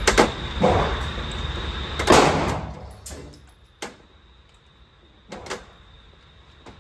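Handgun shots at an indoor range: about six sharp reports at uneven spacing, the loudest about two seconds in, each followed by echo off the range walls.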